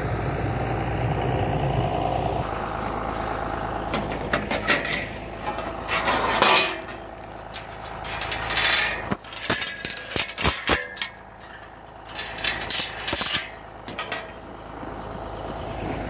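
A chain rattling against a steel pipe gate: a run of sharp metallic clinks and clanks in irregular clusters from about four seconds in.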